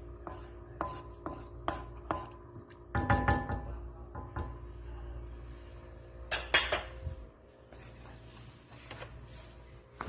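Metal utensil scraping and tapping against a cooking pot while food is scooped and transferred: a string of short ringing taps over a steady low hum, with louder clatters about three seconds in and again past six seconds.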